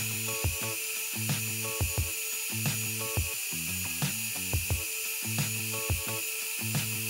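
Background music with a steady drum beat and a stepping bass line, over a steady high-pitched whine of a dental drill cutting away tooth decay.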